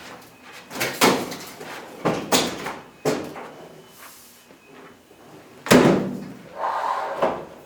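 Knocks, bumps and scrapes of a clothes dryer being pulled out from the wall, with one heavy thump about three-quarters of the way through.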